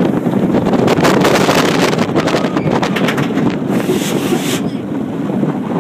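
Wind buffeting a phone's microphone on a moving steel roller coaster, over the steady rumble of the train on its track, with a sharper hiss of wind about four seconds in.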